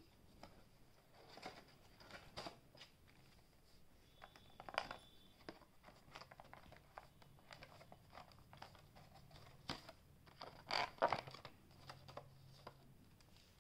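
Hands handling a cardboard box and its black plastic insert tray: faint scattered rustles, scrapes and taps. The loudest are a couple of scrapes near the end, as the trimmer is lifted out of the tray.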